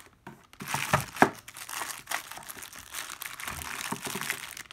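Clear plastic packaging bag crinkling and rustling as it is handled and worked open, with two sharper crackles about a second in.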